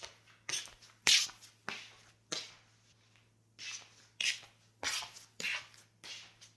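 Footsteps in home slippers, each step a soft slap on the floor, about one every 0.6 seconds. The walking stops for about a second midway, then goes on at the same pace.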